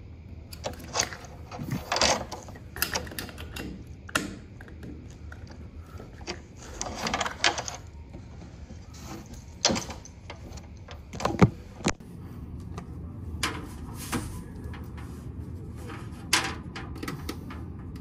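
Scattered clicks, knocks and rustling of hands and tools working at ceiling smoke detectors: heads twisted off their plastic bases and tester leads probed into the base terminals to check polarity. The sharpest clicks come about halfway through.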